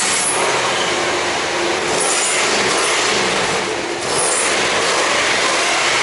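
Jeep Grand Cherokee V8 running and being revved while still cold, heard close to the exhaust as a loud, steady rush that dips briefly about four seconds in.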